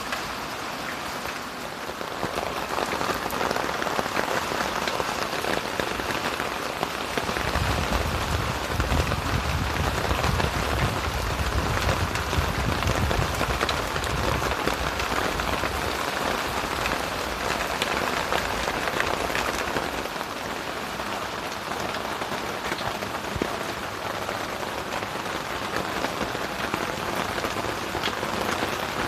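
Heavy downpour of rain falling steadily, with a low rumble for several seconds starting about a quarter of the way in.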